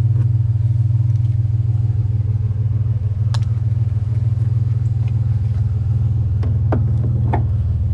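Pickup truck engine running with a steady low drone. A sharp click comes about three seconds in, and a few short squeaks follow near the end.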